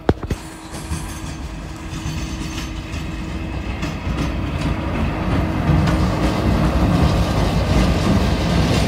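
2ES6 electric freight locomotive approaching and passing close by at the head of a freight train, growing steadily louder, with wheels rumbling and clicking over the rail joints. A couple of sharp knocks come right at the start, and a steady tone is heard through the first half.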